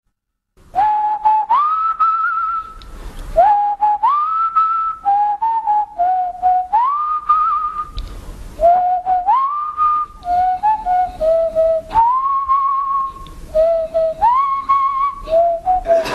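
A person whistling a repeating tune. Each phrase slides up to a long held note with a slight waver, then drops back to a few short lower notes, with light clicks in between.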